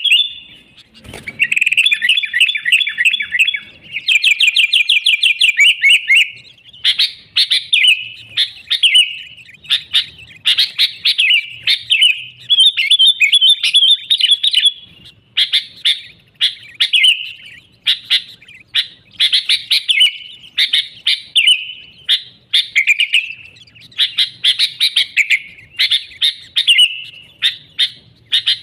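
Sooty-headed bulbul singing vigorously, with fast chattering trills early on and then repeated short, bubbling phrases about once a second. A brief low thump sounds about a second in.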